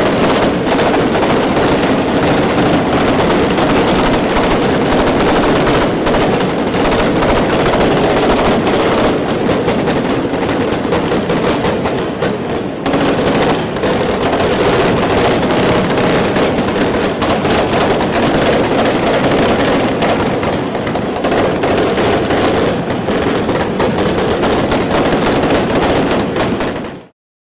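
Rapid, continuous gunfire, like machine-gun volleys, with no break, cutting off suddenly near the end.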